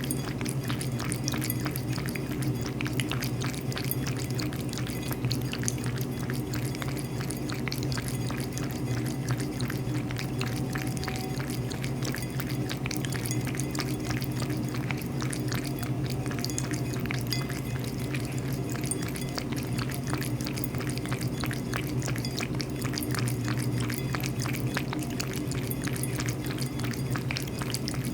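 A cat lapping water, a quick even run of small wet clicks that keeps going, over a steady low hum.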